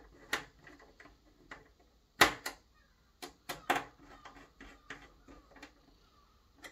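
Irregular small clicks and taps of a screwdriver and fingers working at the play switch inside a turntable's plastic chassis as it is reseated, with one sharper knock about two seconds in.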